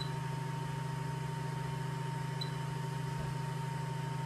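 Stock cooling fans of an Anycubic Mega S 3D printer running with a steady hum and a thin, constant high whine over it, as the printer starts up a print.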